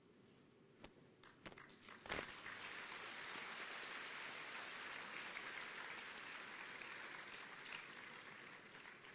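Audience applauding. A few separate claps come first, then about two seconds in it becomes steady applause that slowly dies down.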